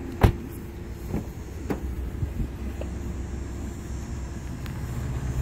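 A car door slams shut with one sharp bang about a quarter second in, followed by a couple of faint clicks, over a steady low hum.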